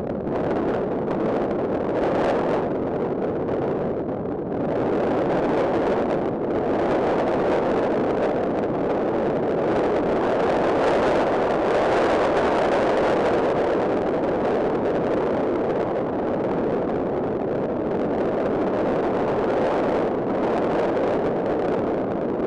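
Rocket engine firing: a continuous, even rushing noise with no distinct pitch, swelling slightly toward the middle.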